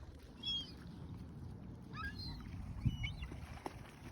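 Waterbirds giving faint, short calls a few times over a steady low rumble of wind.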